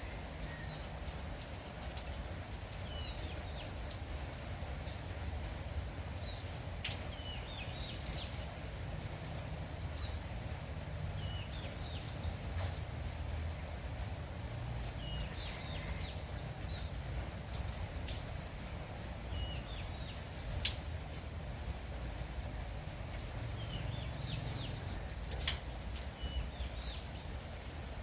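Light rain with a steady low hiss. A songbird repeats a short high chirping phrase about every four seconds, with occasional sharp ticks in between.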